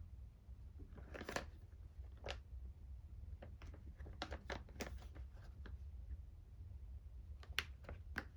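Packaging being handled during an unboxing: scattered short crinkles and clicks, with a longer rustle about a second in and two sharp clicks near the end, over a low steady hum.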